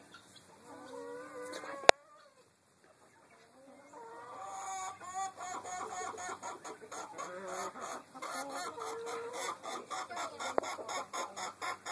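Chickens clucking in a coop. A faint call or two comes first, then a single sharp click about two seconds in. After a brief lull, rapid back-and-forth clucking starts and keeps going.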